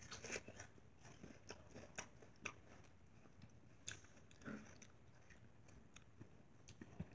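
Faint chewing of watermelon: soft, irregular wet crunches and mouth clicks as bites of watermelon are eaten.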